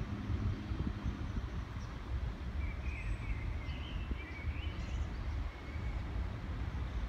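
Steady low outdoor rumble, with a small bird chirping a few times in the middle.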